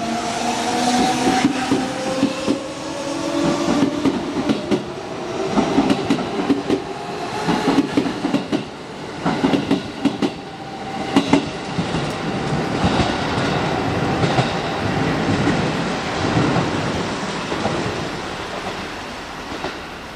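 Passing train: its wheels click over the rail joints in repeated clusters, loudest in the middle, over a steady rumble. A whine shifts slightly in pitch at the start, and the sound fades toward the end.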